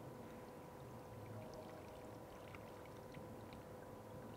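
Water trickling from a plastic bottle into the open pipe on top of an electric centrifugal pump, priming the pump before it is started. It is faint, over a steady hum.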